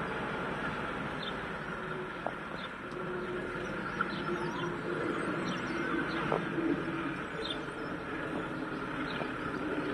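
Small birds chirping again and again in short, high, falling notes over the steady distant hum of a tractor and a bale loader working in the field, with a few faint knocks.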